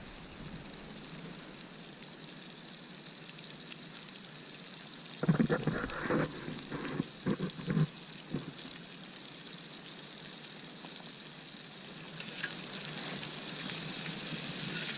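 Lamb chops sizzling over a campfire: a steady frying hiss. A few louder short sounds come about five to eight seconds in.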